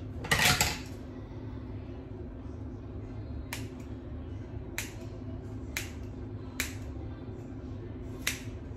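Scissors snipping through a thick wet ponytail: five sharp cuts about a second apart, starting about three and a half seconds in, over a steady low hum. A short, loud rustle about half a second in is the loudest sound.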